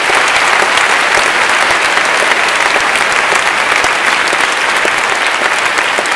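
A large audience applauding: dense, steady clapping from many hands filling the hall.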